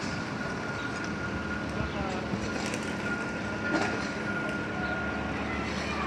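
A steady mechanical hum with a thin, high, constant tone above it, and faint voices in the background.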